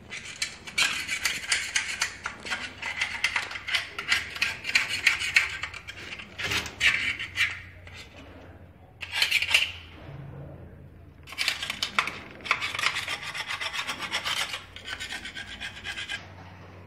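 Rubbing and scraping strokes by hand on the metal underside of a Sulzer marine engine's cylinder head, as the face around the bores is wiped down before fitting. The strokes come in runs of a few seconds with short pauses between them.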